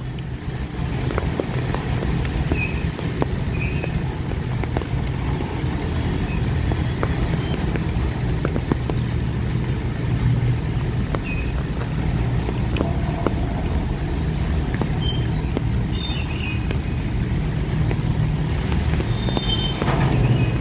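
Goods train of covered wagons rolling past: a steady low rumble of wheels on rails with scattered light clicks, a little louder near the end.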